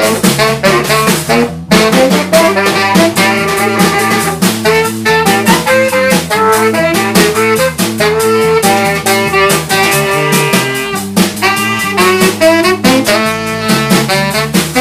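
Live jazz band playing, with electric bass and drum kit under a melodic lead line. The whole band stops for an instant about a second and a half in, then plays on.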